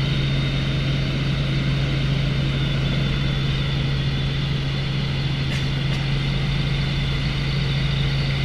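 Helicopter engine and rotors running steadily, a constant low hum over a steady rushing noise.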